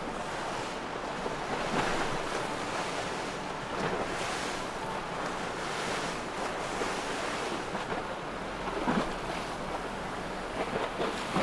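Wind buffeting the microphone over rushing, splashing water from a fast motor yacht's bow spray and wake, with a gusty rise and fall.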